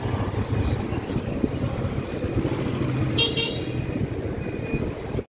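Honda ADV 150 scooter's single-cylinder engine running steadily at low riding speed, with road noise. About three seconds in come two short high-pitched toots, like a vehicle horn, and the sound cuts off suddenly near the end.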